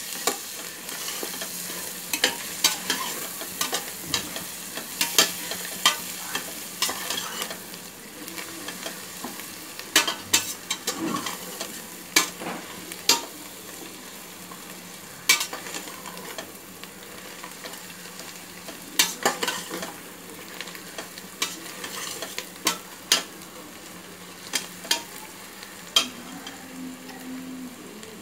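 A flat spatula stirring and scraping mint and coriander leaves frying in oil in a steel pot: a steady sizzle under irregular scrapes and clicks against the pot. The scraping is busiest in the first eight seconds, then comes in scattered strokes.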